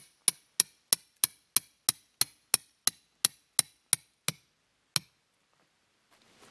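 Rapid, evenly spaced hammer-like knocks, about three a second, hard and sharp. They stop a little after four seconds in, with one last knock about a second later.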